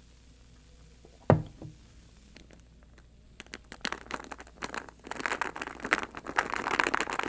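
A single sharp knock, then a dense, irregular crackling that builds from about three and a half seconds in and grows louder toward the end.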